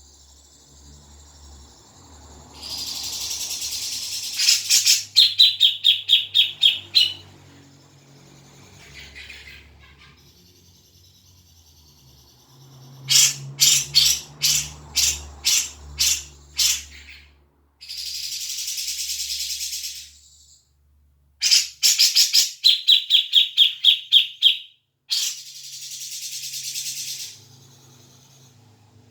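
Grey-cheeked bulbul (cucak jenggot) calling in three bouts: harsh rasping calls alternating with quick runs of sharp, evenly repeated notes.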